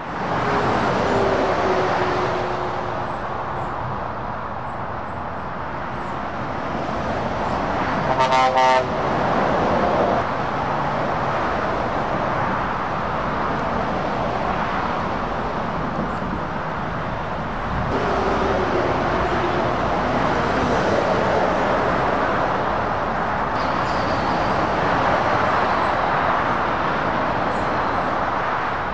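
Motorway traffic: lorries and cars passing steadily, with tyre and engine noise swelling and easing as each goes by. About eight seconds in, a vehicle horn sounds once for about half a second, the loudest sound here.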